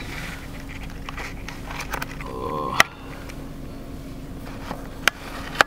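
Steady hum inside a car's cabin, with a short pitched tone about two seconds in and sharp clicks three times.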